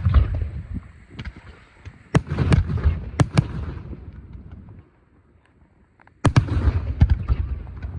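Aerial fireworks shells bursting with loud bangs and a rolling echo. There is one bang at the start, a quick run of several more a couple of seconds in, and a sudden break, then another loud bang with a long rumble near the end.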